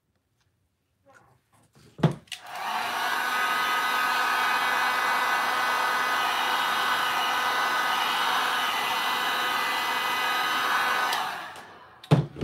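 Heat gun blowing hot air over wet epoxy resin. It switches on with a click about two seconds in and its fan whine rises, then runs steadily. It winds down and clicks off near the end.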